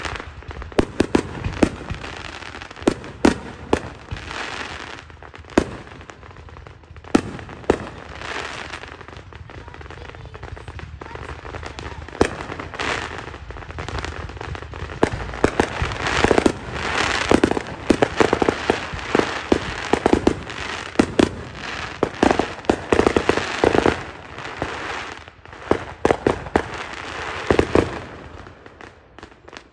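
Aerial fireworks going off in a rapid, irregular string of sharp bangs with crackling. The bangs come thickest in the middle and stop shortly before the end.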